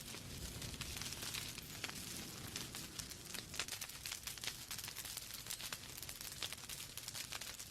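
Wood fire in a fireplace burning steadily, logs crackling with many small irregular pops and snaps over a soft hiss and low rumble of the flames.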